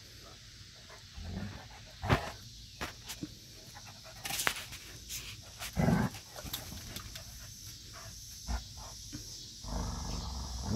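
Two Newfoundland dogs, an adult and a puppy, play-fighting: scattered short bursts of dog vocalising and scuffling, loudest about six seconds in, with a longer low rumble near the end.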